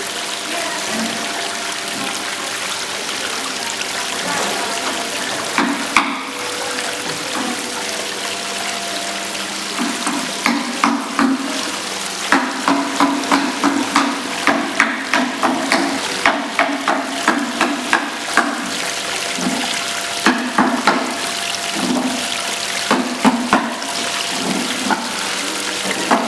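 Water running steadily through a decorative waterfall fountain being tested. From about ten seconds in, many short sharp splashes and clicks stand out over the steady rush.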